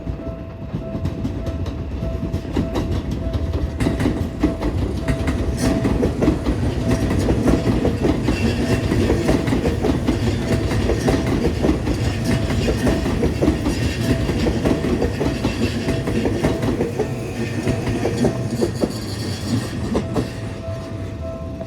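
Japanese railway crossing warning bell ringing its repeated electronic clang while a Seibu Railway train runs over the crossing, wheels clattering over the rail joints. The train noise builds over the first few seconds and fades near the end, leaving the bell.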